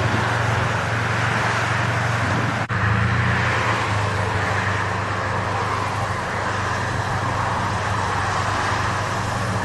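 Steady engine drone with a broad hiss, like heavy vehicles or machinery running, cut by a brief dropout just under three seconds in.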